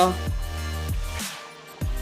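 Electronic background music with sustained tones over a deep bass line; the bass cuts out for about half a second in the second half, then comes back.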